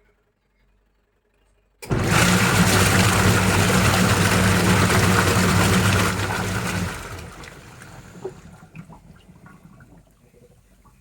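Twin-tub washing machine's wash motor switching on suddenly and churning water, with a low motor hum under the splashing. The motor cuts out about five seconds later and the sloshing water dies away.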